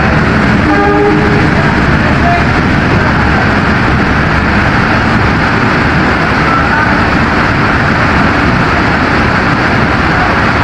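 Long-distance passenger train running through the station at speed without stopping: the steady, loud noise of the train rolling past on the rails.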